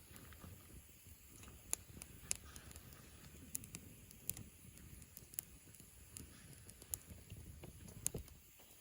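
Wood campfire crackling: a handful of sharp, irregular pops over a faint low hiss.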